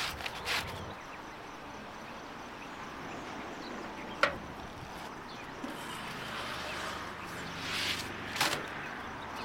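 A thin yufka dough sheet is laid on an iron griddle with a wooden stick, with one sharp tap about four seconds in and a brief rustling scrape near the end, over steady outdoor background.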